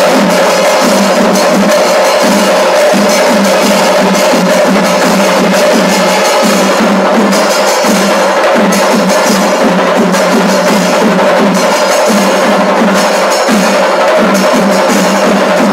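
Pandimelam percussion: a row of chenda drums beaten with sticks in a dense, fast, unbroken rhythm at steady loudness.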